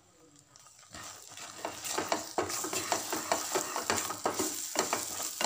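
Wooden spatula stirring a thick spice paste in a hot oiled pan, scraping with a light sizzle. It starts about a second in, after a near-silent moment.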